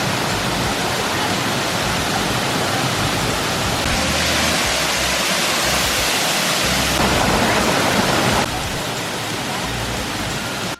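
Waterfall pouring: a loud, steady rush of falling water. Its tone shifts a few times, at about four, seven and eight and a half seconds in.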